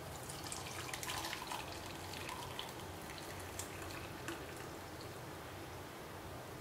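Hot milky masala tea being poured from a saucepan through a fine mesh tea strainer into a steel tumbler: a faint splashing trickle, fuller in the first couple of seconds and thinning to a thin stream near the end.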